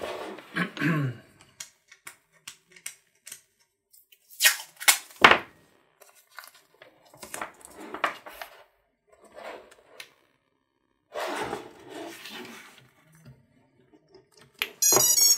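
Masking tape being torn and pressed onto the brushless motors, with scattered rustles, clicks and knocks from handling the small quadcopter frame. Near the end a battery is plugged in and the BLHeli_S ESCs start their beeping tones.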